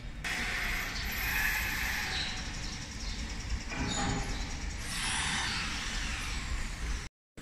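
CNC wood lathe turning a wooden baluster: the spinning workpiece is cut by the traversing tool, giving a steady rasping, hissing cut over the machine's low hum. The sound breaks off abruptly near the end.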